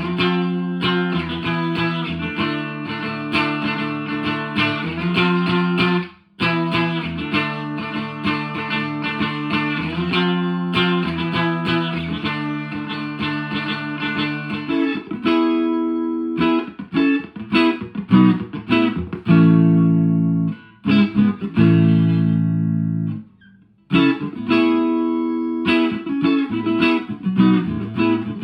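1983 Fender Squier JV Telecaster played through channel 1 of a 1963 Selmer Thunderbird Fifty valve amp with 1970s Celestion Greenback speakers. For about fifteen seconds it plays a continuous run of picked notes and chords, with a brief break about six seconds in. After that come separate ringing chords, each cut off, with short pauses between them.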